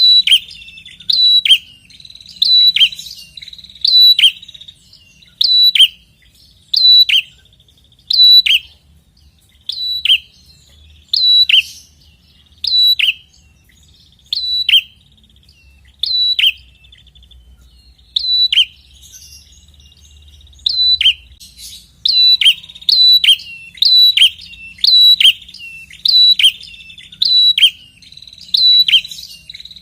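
Prenjak kepala merah (red-headed prenjak) calling insistently: loud, sharp chipping calls with a quick falling sweep, repeated about once every second or so with a short lull partway through. It is a lure call for drawing other prenjaks to answer.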